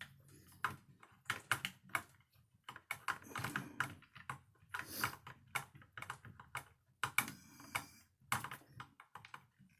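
Irregular small clicks and taps of plastic and metal RC car parts being handled while a shock absorber is fitted to the buggy's chassis, with a brief scrape about seven seconds in.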